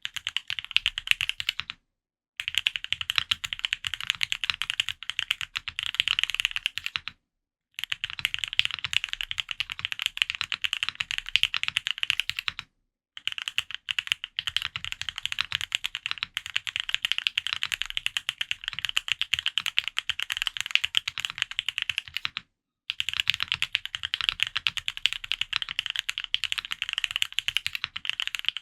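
Fast, continuous typing on an F1-8X custom mechanical keyboard with Krytox-lubed Gateron Oil King linear switches under PBT keycaps on an aluminium plate, each keystroke a quick clack. The typing breaks off into dead silence four times for a fraction of a second each.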